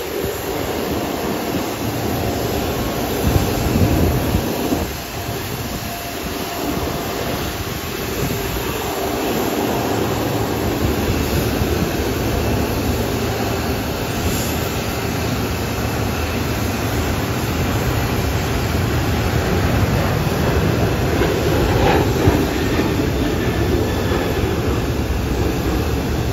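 Jet airliner engines running, a steady noise that grows slightly louder over the stretch.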